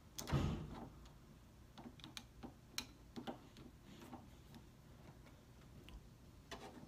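Scattered light clicks and taps from the parts of a door knob being handled and unscrewed as it is taken apart, with one louder knock just after the start.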